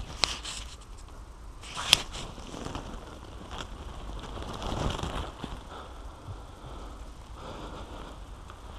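Leaves and branches brushing against a body-worn camera in thick undergrowth, with two sharp clicks in the first two seconds and a louder rustling scrape about five seconds in.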